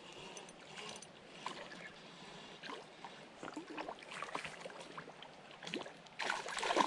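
A hooked trout splashing and thrashing at the water's surface as it is reeled in on a spinning reel, in short irregular splashes with a louder burst near the end.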